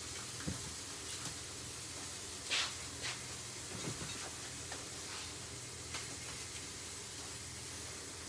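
Sirloin steak sizzling steadily in a hot frying pan, held fat side down to render its fat, with a few light knocks from things being handled.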